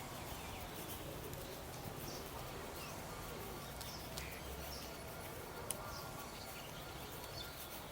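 Birds chirping now and then over a steady outdoor background hum, with a sharp tick a little before six seconds in.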